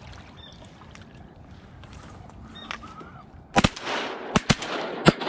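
Shotgun shots fired at ducks flying overhead: a rapid volley of sharp blasts, about five in under two seconds, starting about two-thirds of the way in.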